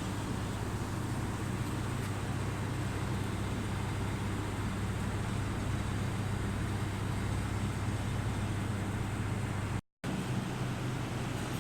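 Hydraulic busbar processing machine running with a steady low hum over an even noise, with no strokes or impacts. The sound cuts out completely for a split second near the end.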